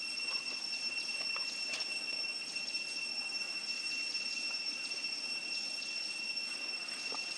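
Steady, unbroken high-pitched insect drone, typical of cicadas, with a few faint clicks.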